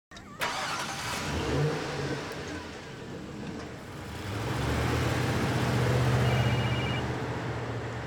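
Large SUV's engine running, then pulling away and accelerating from about four seconds in, with a sharp click at the very start.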